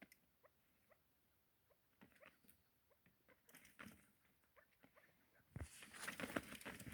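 Faint chukar partridge calls: short rising chirps repeated a few times a second. About five and a half seconds in, a louder crackling and rustling starts and covers them.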